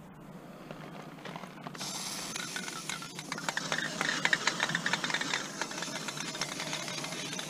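Aerosol spray-paint can hissing steadily, starting about two seconds in, with a patter of clicks and rattles through the middle.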